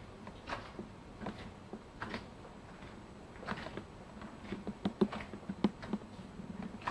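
Soft, irregular taps and knocks in a quiet room, spaced about a second apart at first and coming more often in the second half.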